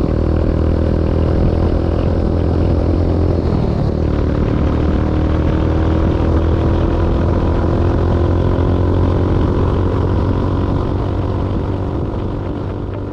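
Motorcycle engine running steadily while riding at road speed; its pitch rises slowly partway through as it speeds up, and it eases off near the end.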